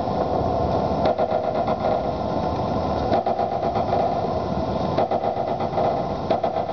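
Noise music built from mixed everyday sounds: a dense, steady machine-like rattle and drone, with brief louder surges about every two seconds.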